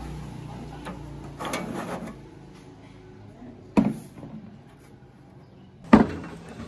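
Parts of a rusty machine being handled during disassembly: a brief scraping shuffle, then two sharp knocks about two seconds apart, the second the louder.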